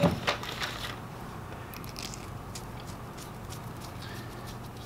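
Yellow plastic twist-on wire nut being screwed by hand onto a pair of motor lead wires: faint, irregular crackling clicks as it twists and grips. A brief louder sound comes right at the start, over a low steady hum.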